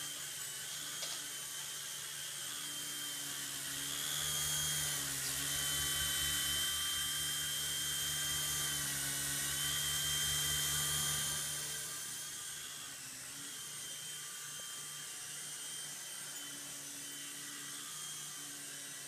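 Traxxas DR-1 coaxial RC helicopter's electric motors and rotors whining steadily in flight, the pitch wavering slightly. It grows louder for several seconds in the middle as it comes close.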